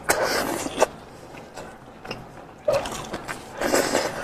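Close-miked eating sounds: wet chewing and tearing of cooked sheep's head meat. The sounds come in irregular bursts, with a quieter pause in the middle.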